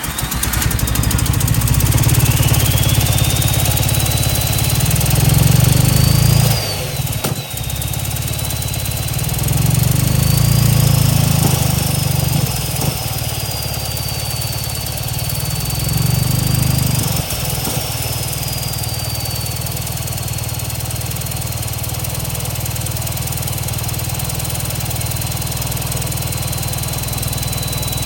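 Mitsubishi Starion's four-cylinder engine just caught after a restart, revved up three times and then settling to an idle, with a high whine rising and falling with the revs. It runs on fewer than all four cylinders, which the owner puts down to bad spark plug wires.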